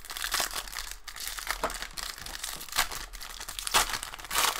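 Foil trading-card pack (2019/20 Upper Deck SP Game Used hockey) crinkling and tearing in the hands as it is opened, a run of short crackles that grows louder near the end.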